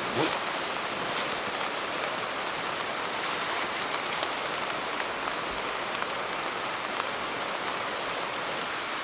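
Steady rain falling, an even hiss with scattered individual drops tapping.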